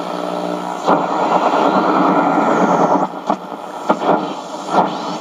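Heavy electrical interference coming from the Radio Shack 12-795 shortwave receiver's speaker as it is tuned on shortwave: a loud, dense rushing noise broken by a few sharp pops. The speaker calls the electrical noise super bad today.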